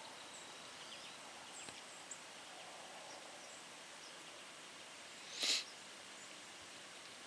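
Quiet woodland background with a few faint, short, high bird chirps, and one brief noisy burst about five and a half seconds in.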